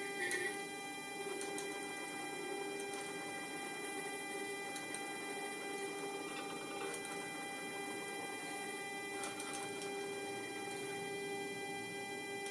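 Steady electrical hum from a powered Sperry AD-300C attitude director indicator and the synchros driving it, with a few faint ticks scattered through as the indicator's sphere is driven round in pitch and roll by a hand-turned synchro.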